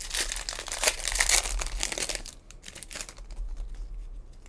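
Wrapper of a Topps WWE trading card pack being torn open and crinkled by hand, a dense crackling for about two seconds. It then drops to a few soft clicks and rustles as the freed stack of cards is handled.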